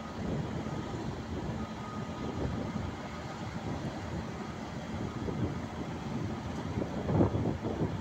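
Diesel engines of a Caterpillar tracked excavator and crawler bulldozers running steadily, a low engine noise that swells briefly about seven seconds in.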